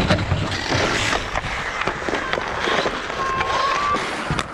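Ice hockey play: skate blades scraping the ice and sticks clacking against the puck and ice in a run of sharp knocks, with a short call from a voice about three seconds in.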